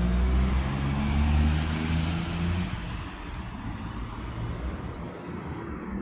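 A motor vehicle running close by, a low engine drone with a rushing noise, that fades away after about three seconds into quieter, distant street traffic.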